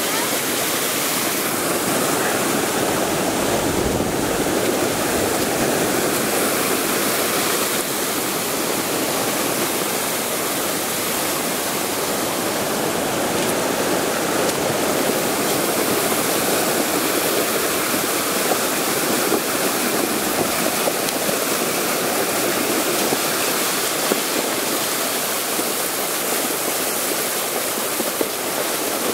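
Muddy floodwater rushing and churning over the rocks of a mountain streambed that was dry before a thunderstorm: a flash flood, a steady rush of water without pause.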